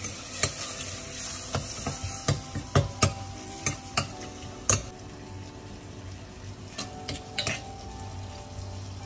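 A metal ladle stirring chopped tomatoes frying in oil in a pressure cooker, giving irregular clinks and scrapes against the pot over a steady sizzle. The clinks thin out after about five seconds. The tomatoes are just starting to soften.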